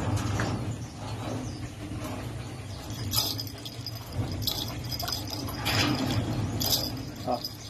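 A Belgian Malinois scrambling and tugging on a towel against a wire-mesh cage, giving several short rattling, scraping bursts over a steady low hum.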